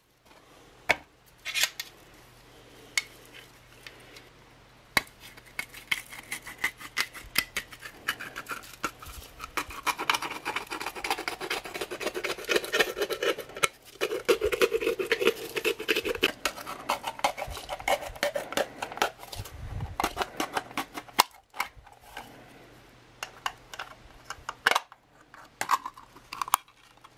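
P-38 can opener biting and working around the rim of an old, rusted tin can: a fast run of sharp metal clicks with a squeaky, wavering scrape, densest through the middle, then a few scattered clinks near the end.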